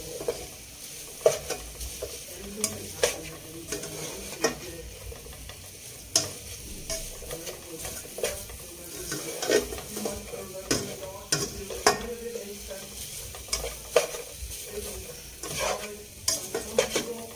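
Beef sizzling as it fries in a nonstick pan, stirred with a spatula: a steady hiss broken by irregular scrapes and knocks of the spatula against the pan.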